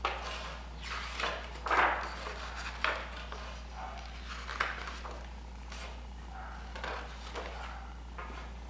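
Pages of a hardcover picture book being turned and handled: a run of paper rustles and soft knocks, loudest in the first three seconds, then a few lighter rustles.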